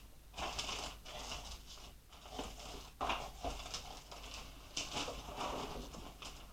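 Hands rummaging through small PC-build parts, rustling and clicking in irregular bursts while picking out a motherboard standoff and its little screw.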